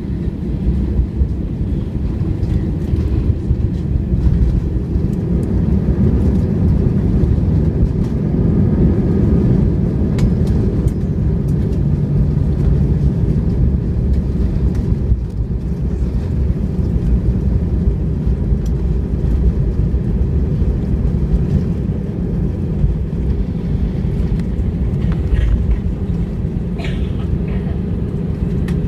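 Cabin noise of an AirAsia Airbus A320 rolling down the runway after touchdown: a loud, steady low rumble heard through the fuselage.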